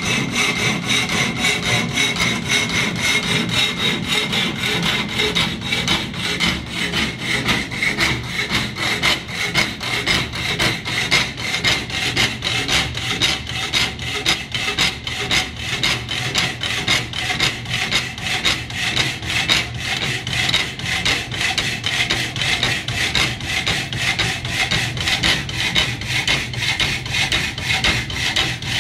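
Homemade electric power hacksaw cutting through square steel tubing, its blade sawing back and forth in a steady even rhythm. The saw is driven by an electric motor through a belt and pulley reduction, set up for slower, stronger strokes, and a low motor hum runs under the sawing.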